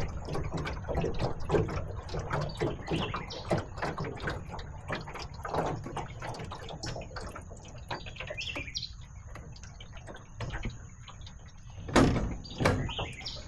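Irregular knocking and clunking of a small boat and its gear being handled, with two loud thumps about twelve seconds in.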